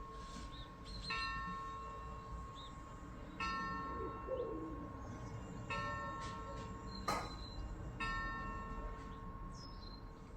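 Bell-like chimes ring four times, one every couple of seconds, each ringing on and fading. Birds chirp faintly in the background, and there is a single sharp click about seven seconds in.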